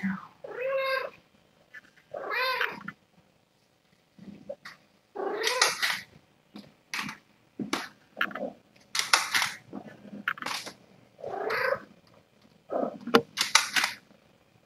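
Cats mewing: a run of a dozen or so separate mews and short squeaks, each rising and falling in pitch, at irregular gaps.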